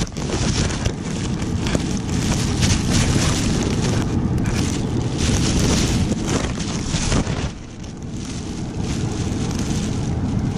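Wind buffeting the microphone, with a plastic bag crinkling as a hand shifts the fish inside it.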